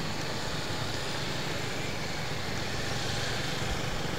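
Steady engine hum and road noise from a car driving slowly through city traffic, heard from inside the car.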